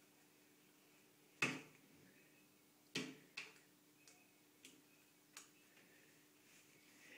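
A handful of sharp taps and clicks against near silence: two louder ones about a second and a half apart, then four fainter ones over the next few seconds.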